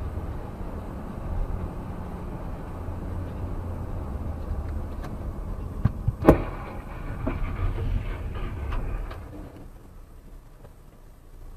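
Car running with a steady low road rumble, then one sharp crash about six seconds in, followed by a run of smaller knocks and rattles. The rumble dies away a few seconds later, as if the vehicle has come to a stop.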